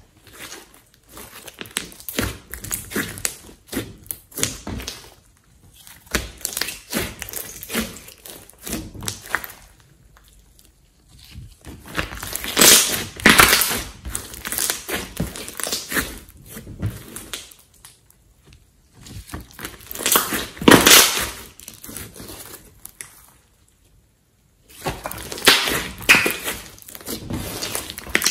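Thick slime mixed with clay being kneaded and pressed by hand, making sticky squishing and crackling pops. It comes in spells of handling, with short pauses between.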